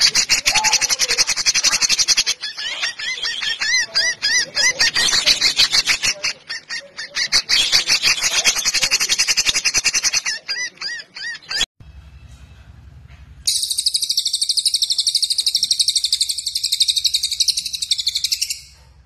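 Songbird calls from a masteran training track: a dense, rapid, high-pitched chattering song that cuts off abruptly, then after a short lull a very fast, even, high trill for about five seconds.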